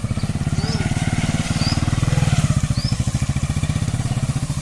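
Motorcycle engine running steadily with a fast, even firing beat, and a few short bird chirps above it.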